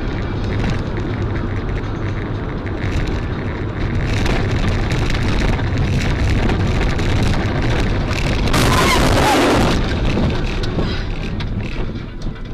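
Heavy rumbling vehicle and road noise with a loud, harsh burst of noise about eight and a half seconds in, lasting just over a second.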